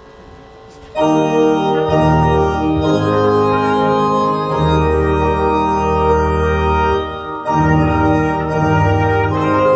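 An electronic organ starts about a second in and plays slow, held chords as church hymn accompaniment, with a short dip near three-quarters of the way through.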